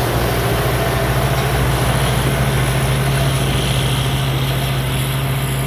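Engine of a Phon Kinnaree-built rice combine harvester running steadily while harvesting, a constant low drone with no change in pitch.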